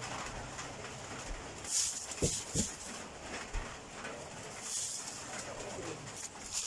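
Thin plastic carrier bag rustling and crinkling in a few bursts as it is picked up and swung, with two short falling animal calls about two and a half seconds in.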